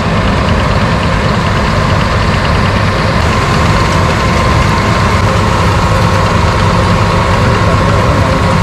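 New Holland TC57 combine harvester running, a loud steady machine drone with a steady high tone held over it.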